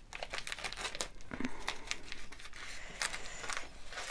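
Scissors snipping through clear transfer tape over vinyl, with the plastic sheet crinkling as it is handled: a run of short, irregular snips and crackles.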